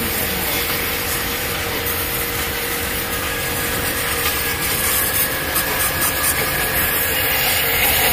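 Portable high-pressure car washer spraying water from its nozzle onto wet ground: a steady hiss of spray with a constant hum from the washer's motor underneath.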